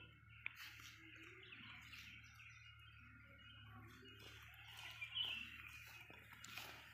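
Faint birds chirping now and then, with a louder call about five seconds in.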